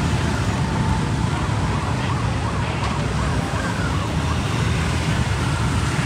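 Steady street-traffic rumble with motor scooters riding past, and a faint siren wavering over it, swinging rapidly up and down for a second or two near the middle.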